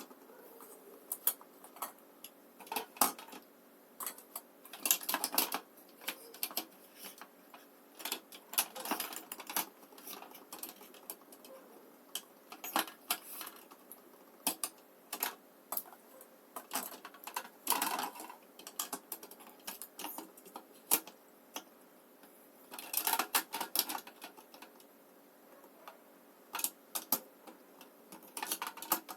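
Lipstick and lip gloss tubes tapping and clicking irregularly as they are set into a lipstick holder, with a few short runs of rattling.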